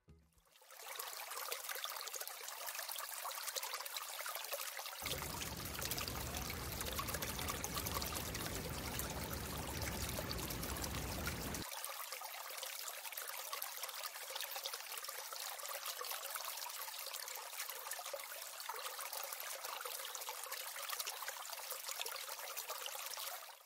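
Water trickling and pouring steadily, with a deeper rushing layer from about five to twelve seconds in; it cuts off suddenly at the end.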